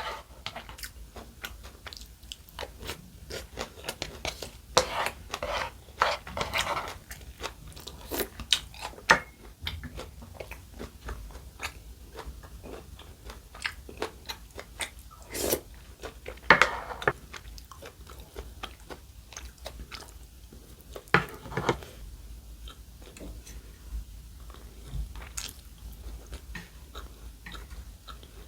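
Close-miked eating: a person biting and chewing crunchy food, with irregular wet clicks and crunches and a few louder bites.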